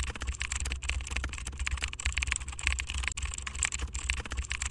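Fast, continuous computer keyboard typing, many keystrokes a second, laid over a low hum.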